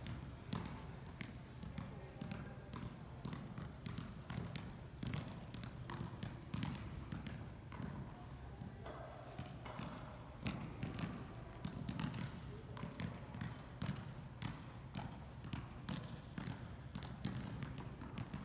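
Soccer balls being juggled and bounced off feet and the ground by several players at once, an irregular patter of thumps, with voices in the background.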